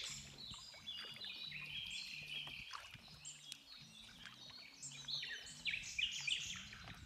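Several birds singing and chirping at once, short overlapping phrases without pause.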